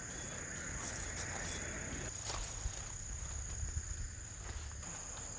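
Insects chirring in one steady high-pitched drone, with a rustling noise over the first two seconds and a few light knocks.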